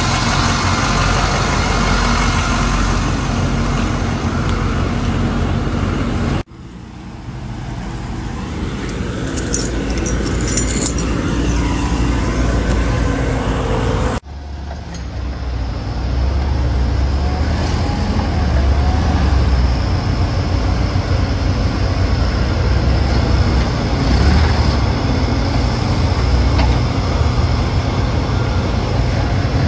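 Engines running steadily, in three recordings joined by abrupt cuts about six and fourteen seconds in; in the last stretch a propane forklift is running as it loads a pallet into a box truck.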